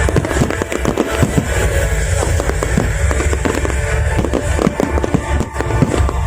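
Fireworks crackling and popping in a dense, continuous string of sharp cracks, over background music.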